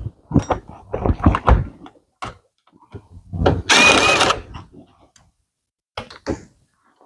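Cordless drill/driver spinning briefly, with a steady high whine, about three and a half seconds in, backing out a screw from the convertible top's side trim, between scattered knocks and clatter of tools and parts being handled.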